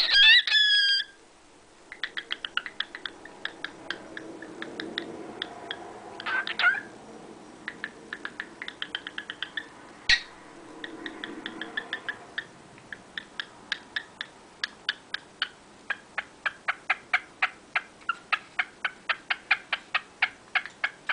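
Cockatiel calling loudly once at the start, then making long runs of short, rapid clicks, several a second. The clicks are broken by another brief call a little past six seconds and a single sharper click around ten seconds.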